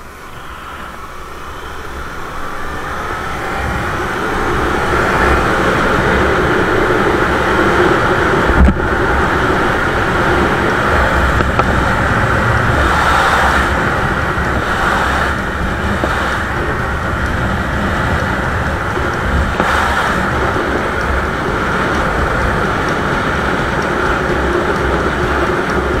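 Kawasaki Ninja 250's parallel-twin engine pulling hard, its pitch and loudness rising over the first few seconds, then running steadily at cruising speed with wind rushing over the microphone. A single sharp knock comes about nine seconds in.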